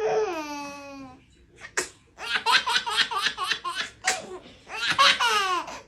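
A baby's high falling squeal, then one short sharp sneeze, followed by a quick run of about eight giggles and another long falling squeal of laughter.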